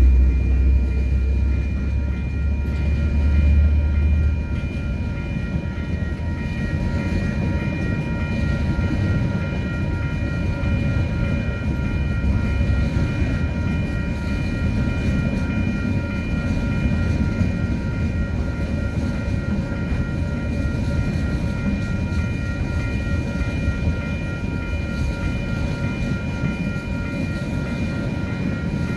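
Freight train of container wagons rolling past on steel rails: a steady rumble with several steady high whining tones over it. A heavy low engine rumble from the diesel locomotive is loud at first and fades about four seconds in as the locomotive draws away.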